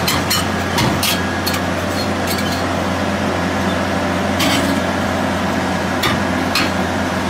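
Heavy truck running as it slowly passes hauling a tracked machine on a lowboy trailer: a steady low engine drone with irregular sharp knocks and clanks, several close together in the first second and sparser after.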